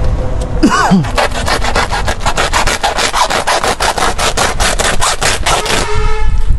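Lumps of charcoal poured from a sack into an earth pit: a dense rattling clatter of many quick hits that stops about six seconds in. A steady pitched tone follows near the end.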